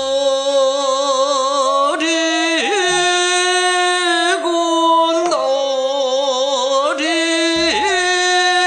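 Male jeongga (Korean classical lyric song) singer singing in long, slowly held notes with a wavering vibrato, the pitch bending at the end of each note, with short breaks for breath between them.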